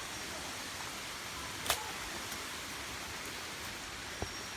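Steady rush of a waterfall's falling water, with a sharp click about a second and a half in and a fainter knock near the end.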